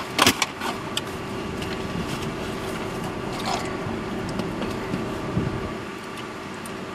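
A paper fountain-drink cup with a plastic lid and straw handled with a few sharp clicks just after the start, then a short sip through the straw about three and a half seconds in, over the steady hum inside a car.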